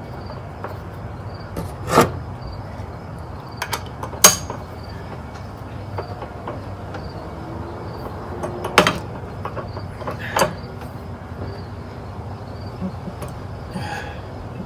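Hand work on an outboard powerhead: four or five separate sharp metallic clicks and knocks of tools and parts being handled, the loudest a little over four seconds in, over a steady low hum.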